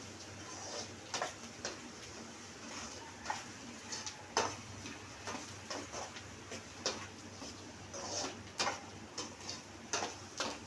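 A spoon stirring onions frying in oil in a pan, scraping and tapping against the pan over a dozen times at irregular intervals.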